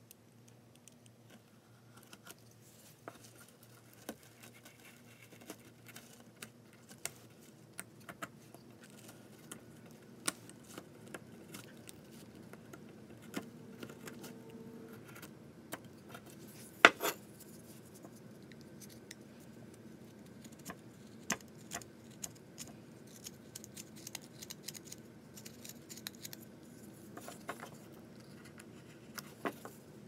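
Knife carving a wooden bird blank by hand: a hobby knife and a small carving knife paring and scraping the wood, heard as scattered light clicks and ticks, with one sharper click a little past halfway.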